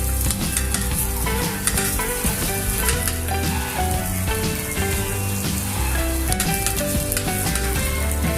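Chopped onions and garlic sizzling in hot oil in a wok, stirred with a spatula that clicks and scrapes against the pan, over background music with a melody and bass line.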